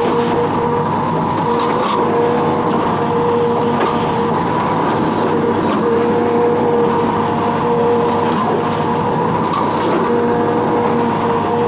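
Hitachi Zaxis 210 amphibious excavator at work: its diesel engine runs steadily and loud, with a high whine that fades in and out.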